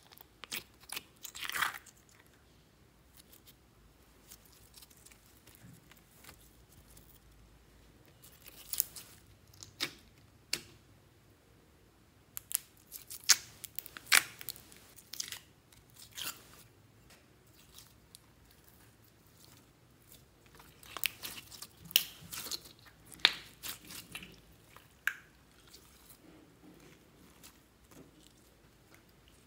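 Fingers pressing, poking and pulling clear glitter slime in plastic tubs, giving clusters of sticky clicks and crackles with quiet stretches between.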